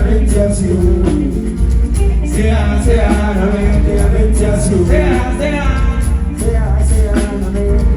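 A live band playing amplified music, with heavy bass, drums and cymbals, and a singer's voice rising over it a couple of times.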